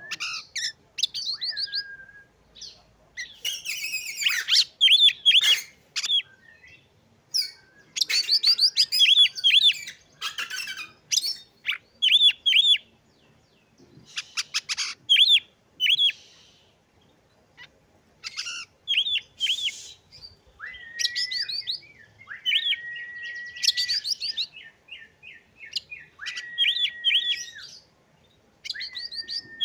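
Oriental magpie-robin singing a loud, varied song: phrases of rapid repeated high notes separated by short pauses, and from about two-thirds of the way in, several long level whistles of about a second each.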